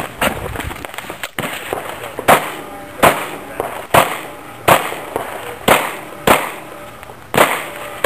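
Pistol shots fired in a steady string, about one a second, each crack followed by a short echo.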